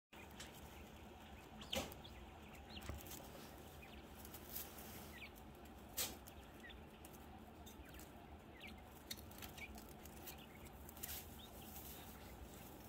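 Jumbo wild-type Coturnix quail giving faint, short chirps now and then, with a few sharp clicks; the loudest clicks come about two seconds and six seconds in.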